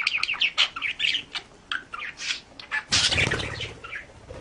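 A bird chirping and squawking in a rapid string of short, high calls, with a louder noisy flurry about three seconds in.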